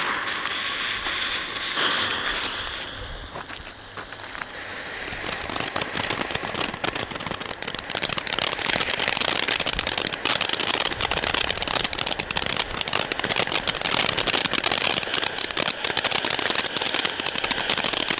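Two small ground firework fountains hissing as they spray sparks. The first flares up suddenly. From about six seconds in a dense, fast crackling joins the hiss.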